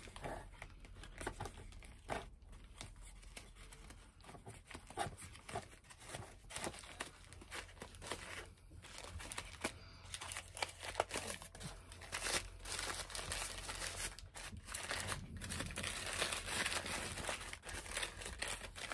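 Paper wrapping crinkling and tearing as a wrapped item is unwrapped by hand, in irregular rustles that grow busier and louder in the second half.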